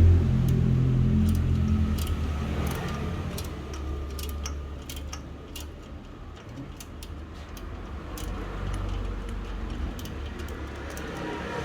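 Irregular sharp metallic clicks and clinks of hand tools on a rusty bicycle's nuts and bolts, over a low vehicle rumble that fades away in the first few seconds.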